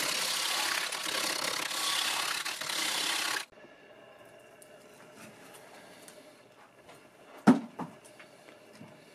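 A turning tool cutting a Leylandii blank spinning on a wood lathe: a steady cutting noise that stops abruptly about three and a half seconds in. Then quieter scraping as bark is prised off the stopped log with a hand tool, with one sharp knock, the loudest sound, about two-thirds of the way through and a lighter one just after.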